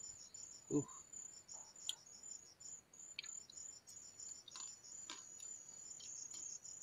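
Insects trill steadily in the bush, a high, evenly pulsing chirr. Small clicks and snaps come through faintly as berries are picked off the vine by hand, and there is a brief low sound about a second in.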